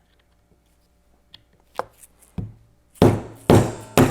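A hammer tapping a pin punch to drive out the pin of an airsoft gas-blowback magazine resting on a bench block: a few light taps, then three hard strikes about half a second apart near the end.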